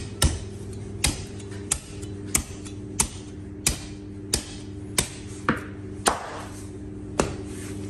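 Butcher's cleaver chopping through a rack of lamb ribs and bone on a wooden block: eleven sharp chops, about one every two-thirds of a second, with a longer gap near the end, over a steady low hum.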